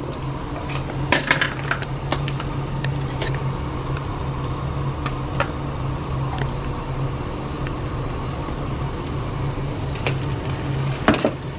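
Vegan oat-milk butter being scooped and dropped into a frying pan: a few light clicks and scrapes about a second in, more scattered clicks after, over a steady low hum. A faint sizzle comes in as the butter starts to melt.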